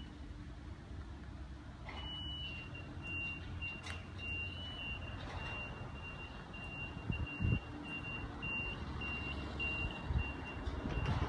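Repeated short, high electronic beeps on one pitch, about two to three a second, starting about two seconds in and stopping shortly before the end, over a steady low rumble.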